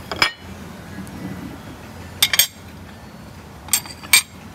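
Ceramic plates and bowls set down on a table, giving sharp clinks of china: one just after the start, a quick cluster about two seconds in, and two more near the end.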